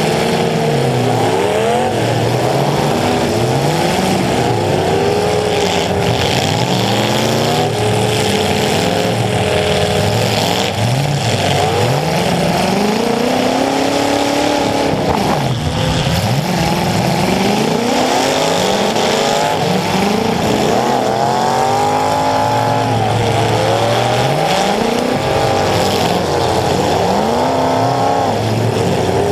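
Demolition derby car engines revving hard, several at once, their pitch climbing and dropping again and again as the cars accelerate and back off.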